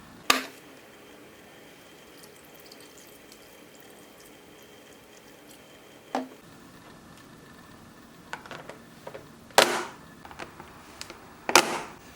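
Several sharp clacks and knocks of hard objects being handled, with smaller clicks between the louder ones near the end, and a faint steady high tone during the first six seconds.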